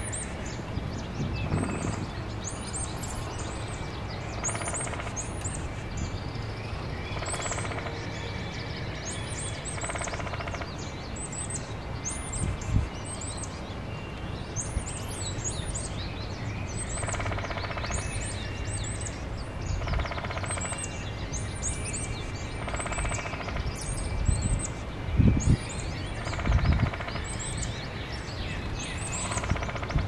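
Backyard songbirds chirping: a steady run of short, high chirps, with a lower song phrase of about a second repeating every few seconds. A few low thumps come near the end.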